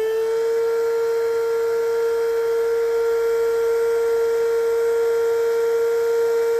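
Electric inflation pump running at a steady pitch with a rushing hiss of air, just up to speed, inflating an inflatable kayak's air chamber.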